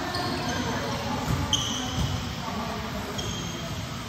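Athletic shoes squeaking on a gym court floor, a few short, high squeaks with the clearest about a second and a half in, over faint voices in a large hall.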